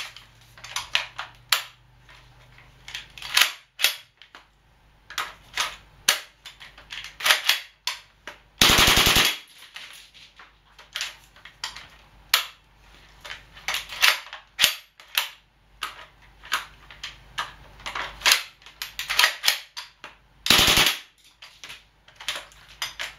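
Gas blowback airsoft SCAR rifle firing on full auto in short, irregular bursts of sharp cracks, the bolt cycling with each shot. Two longer bursts come about nine seconds in and again near the end.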